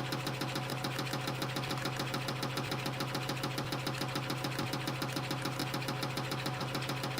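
CNC spring coiling machine running at production speed, coiling 0.6 mm wire into small compression springs: a fast, even rhythm of metallic clicks from the feed and cutting cycle over a steady motor hum.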